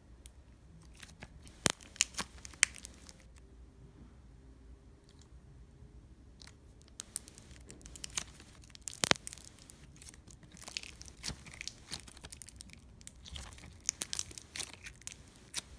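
Soft, stretchy glitter slime being stretched and pressed by hand, giving scattered sharp pops and clicks, the sharpest about nine seconds in and more frequent in the later part.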